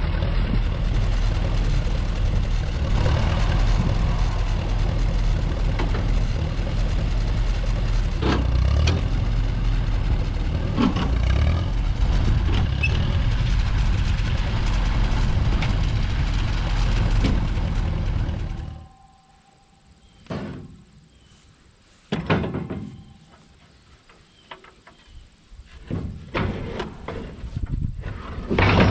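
Allis-Chalmers WD45 tractor engine running steadily, then shut off about two-thirds of the way through. A few separate clunks follow.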